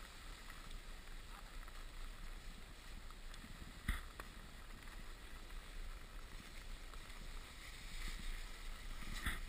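Skis sliding over packed snow, a faint steady scraping noise with a low rumble of wind on the camera microphone. A sharp knock sounds about four seconds in, and another just before the end.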